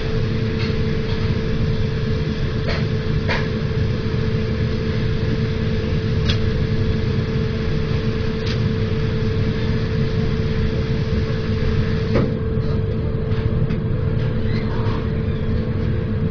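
Steady low machine hum with a constant pitched tone, broken by a handful of light clicks and knocks from washing up at a stainless steel sink.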